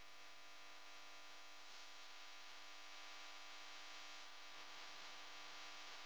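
Near silence: a faint steady hum and hiss of room tone.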